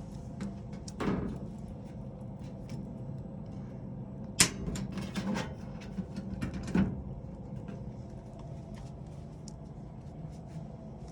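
A few sharp knocks and clunks, the loudest about four and a half seconds in, over a steady low hum.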